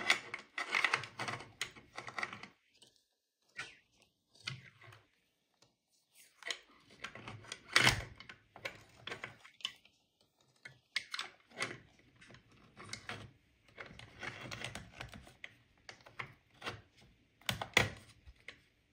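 Irregular clicks, taps and knocks of hard plastic and metal parts as a radio box is handled and pressed into place on an RC car's chassis, with the sharpest knocks about eight seconds in and near the end.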